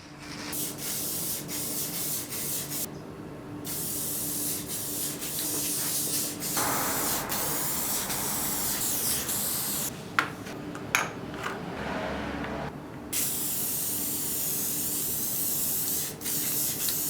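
A steady spraying hiss in long bursts, broken by short pauses, with a few clicks during one pause.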